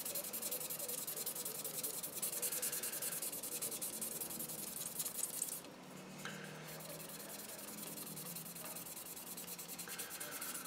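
Sanding stick rubbed quickly back and forth over the primed plastic body of a Tamiya Nissan Skyline model kit, smoothing down a high spot in the primer. The scratchy strokes pause briefly just over halfway through, then start again.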